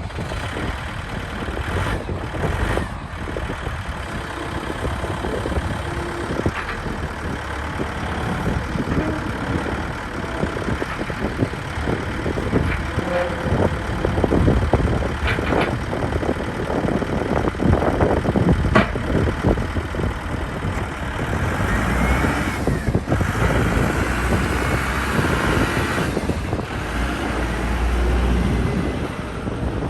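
Volvo backhoe loader's diesel engine running while it works, with a few sharp clanks about halfway through and a rising whine a little past two-thirds of the way in.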